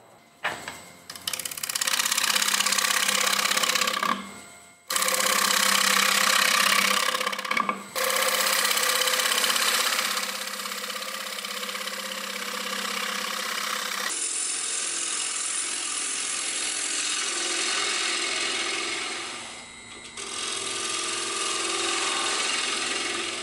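A gouge cutting the face of a pine disc spinning on a wood lathe: a loud shearing hiss of shavings, in several passes of a few seconds each, then a steadier, somewhat quieter run of cutting.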